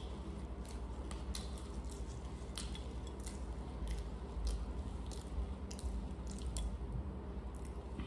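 Close-up eating sounds of crunchy bhel puri: chewing, and the dry puffed rice and sev mixture crackling as fingers scoop it up. The sound is a scatter of short, sharp crackles over a low steady hum.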